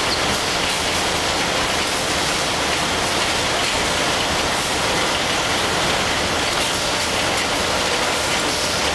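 Automatic facial tissue production line machinery running, giving a steady, dense noise with no clear rhythm.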